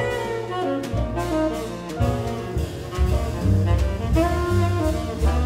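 Live jazz quartet playing: saxophone carrying the melody over grand piano, double bass and drum kit with cymbals.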